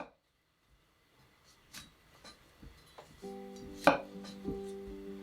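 Kitchen knife knocking on a wooden cutting board in a few irregular strokes, one much sharper than the rest about four seconds in. Soft background music with sustained chords comes in about three seconds in.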